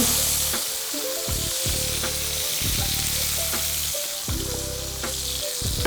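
Chicken thighs frying skin-side down in sesame oil in a pan, giving a steady sizzle as the skin crisps.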